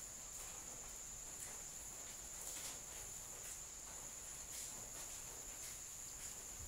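Faint, steady high-pitched insect trill, like crickets, with scattered faint clicks.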